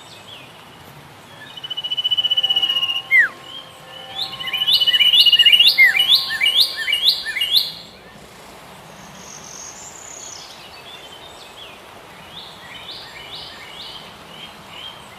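Songbirds singing: a high trill about two seconds in, then a loud run of quickly repeated sweeping notes from about four to eight seconds, followed by quieter, scattered calls.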